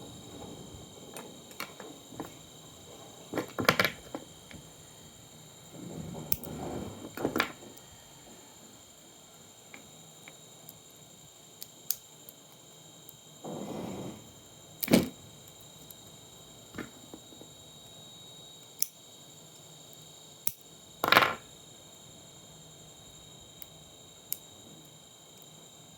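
Irregular clicks and knocks of parts and tools being handled, with a few sharper knocks and two short stretches of scraping, over a faint steady high-pitched tone.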